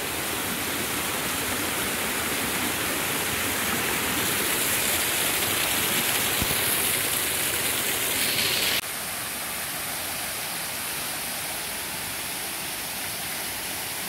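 Rushing water of a small waterfall cascading over rocks into a stream, a steady hiss. About nine seconds in it drops suddenly to a quieter steady rush.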